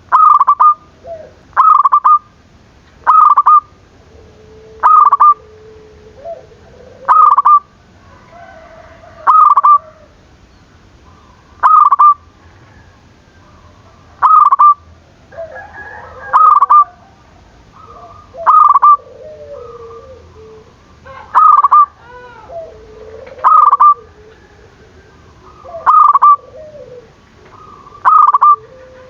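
Zebra dove (perkutut) cooing over and over: loud, short, clipped notes come every two seconds or so, with fainter, lower, wavering cooing between them.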